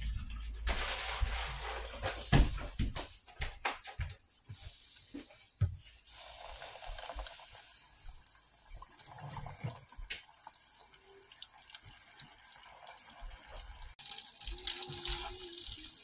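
A few knocks and clicks of handling a pan while fish fillets are breaded, then, from about six seconds in, the steady sizzle and crackle of breaded fish fillets frying in a deep fryer's hot oil, a little louder near the end.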